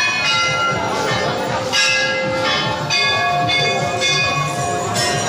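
Hanging temple bells being rung by hand, struck again and again so that their metallic tones overlap and ring on, with a fresh strike every half second to a second.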